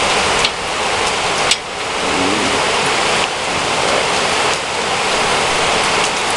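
Steady loud rushing hiss, like rain or a fan, with two brief clicks in the first two seconds.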